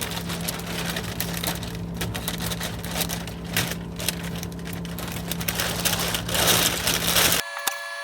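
A small motor running with a steady hum and a fast, even rattle, cut off abruptly about seven and a half seconds in, where a thinner sound with steady tones and a few clicks takes over.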